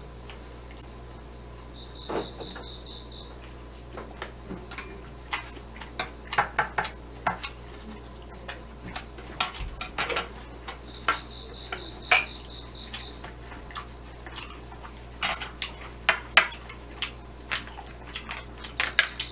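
Irregular light clicks and taps of metal chopsticks against a plastic sushi tray while a piece of shrimp sushi is being eaten, over a low steady hum.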